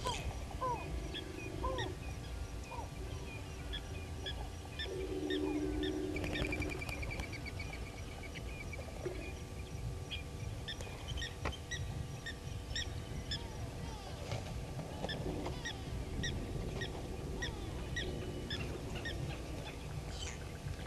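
Wild birds calling around a waterhole: short high chirps repeat throughout, with low drawn-out calls at the start and again about five to seven seconds in.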